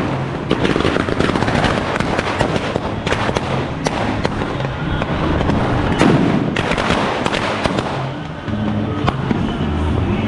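Firecrackers crackling and popping in dense, irregular volleys, loudest about six seconds in, over music with a steady bass line.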